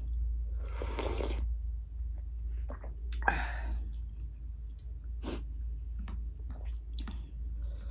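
Slurping broth from a bowl, twice: about a second in and about three seconds in. Between and after come chewing and small wet mouth clicks.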